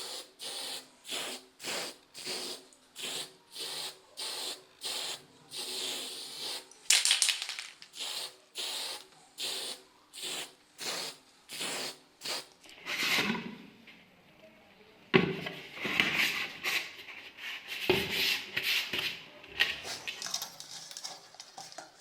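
Rhythmic back-and-forth rubbing strokes on a surface, about two a second, like hand sanding or scrubbing, which turn into irregular scrapes past the middle. A sharp knock a little over halfway is the loudest sound, with another a few seconds later.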